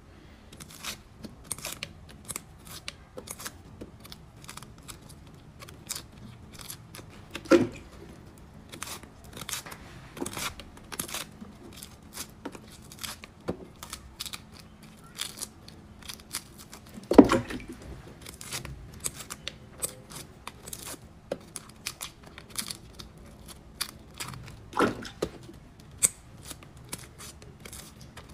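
Dry, papery garlic skins crackling and tearing as they are pried off the bulbs with a small metal tool, in quick irregular clicks and scratches. Three louder knocks stand out, about a quarter, a little over half and most of the way through.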